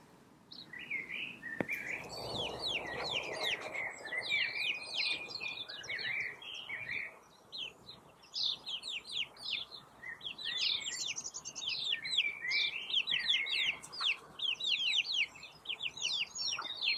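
Young chicks peeping: a steady stream of short, high, falling cheeps overlapping one another, with a brief lull about halfway through.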